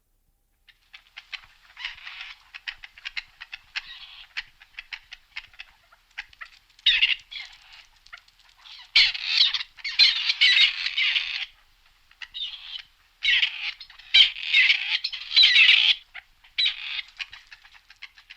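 Grey partridge calling: rapid chattering calls that start about a second in and come in several loud bursts through the second half.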